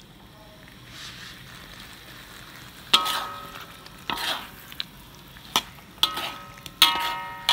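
A spatula scraping and knocking against a metal pan while vegetables are stir-fried, with a soft sizzle underneath. From about three seconds in come about six sharp knocks at uneven intervals, the pan ringing briefly after each.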